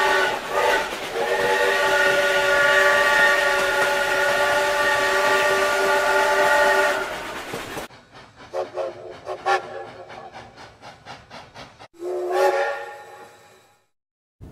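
Steam locomotive chime whistle blowing a long chord of several notes through hissing steam, with a brief break near the start and a sharp stop about seven seconds in. Then come quieter even pulses, about three a second, with faint whistle notes, and a short whistle blast about twelve seconds in that fades away.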